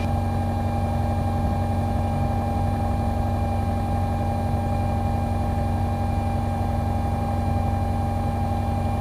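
Commander light aircraft's piston engine and propeller heard from the cockpit as a steady, unchanging drone, with the fuel pump on and the mixture full rich for takeoff.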